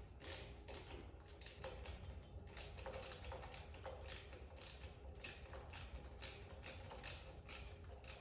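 Socket ratchet clicking faintly as the ignition coil's mounting bolts are backed out, in short repeated clicks about two to three a second.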